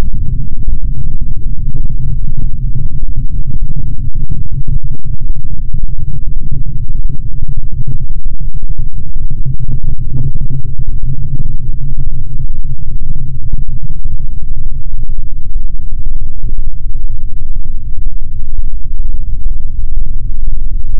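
Loud, distorted electronic drone: a steady deep hum with rough noise above it, unchanging throughout.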